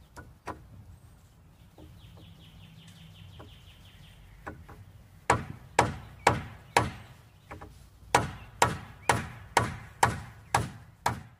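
Hammer blows on the wooden top beam of a pallet-wood frame: a few light taps, then, about five seconds in, a steady run of about a dozen hard strikes, roughly two a second.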